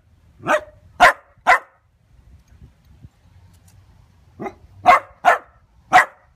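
Dachshund barking: three sharp barks, a pause of nearly three seconds, then four more.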